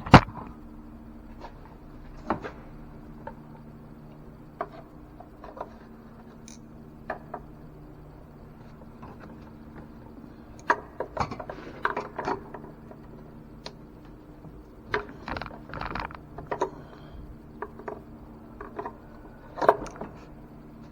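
Scattered clicks, taps and light knocks of rubber vacuum hoses and plastic parts being worked off a car engine's intake, over a steady low hum.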